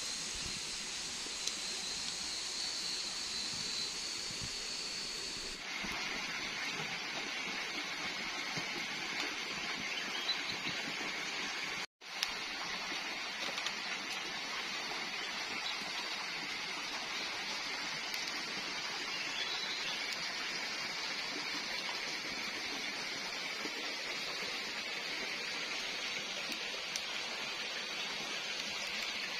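Steady forest ambience at night: an even hiss, with a high insect drone for the first six seconds or so. The sound changes abruptly about six seconds in and drops out for a moment about twelve seconds in, where the clips are cut together.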